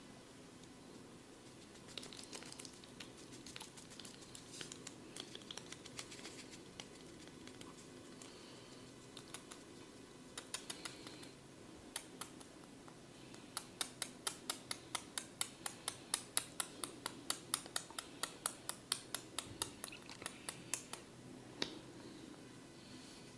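Close ASMR barber massage sounds: soft rubbing and scattered light clicks, then, past the middle, a fast even run of sharp clicks or taps, about four a second, lasting several seconds.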